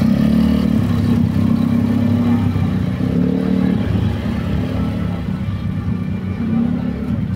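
A motor vehicle engine running, a steady low rumble, with faint voices in the background.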